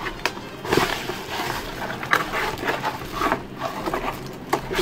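Plastic wrapping and cardboard packaging rustling and crinkling as a boxed clock radio is pulled out and unpacked, with a few sharp clicks and scrapes.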